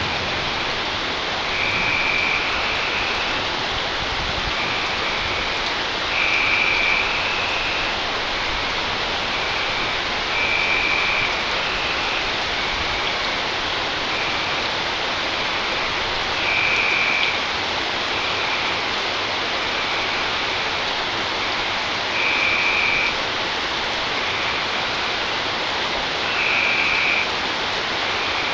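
Steady rain falling during a thunderstorm, an even hiss. A short high-pitched call recurs through it every couple of seconds, the louder ones every four to six seconds.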